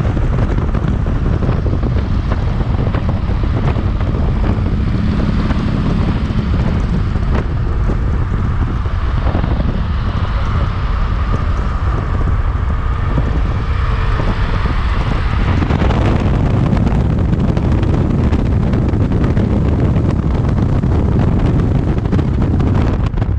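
Heavy wind buffeting on the microphone with tyre and road noise from a car driving at highway speed, steady throughout.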